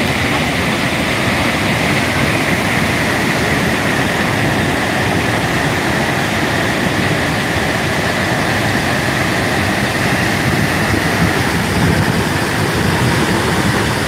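Steady roar of Purwa Falls in heavy flow: a loud, unbroken rush of falling water and spray.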